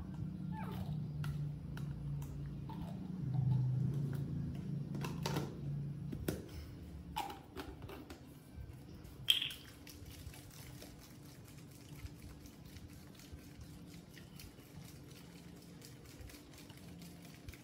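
Baby formula being made: a plastic scoop scraping milk powder out of a can and tipping it into a plastic baby bottle, with scattered light taps and clicks, then the capped bottle being handled. A short, sharp high sound comes about nine seconds in.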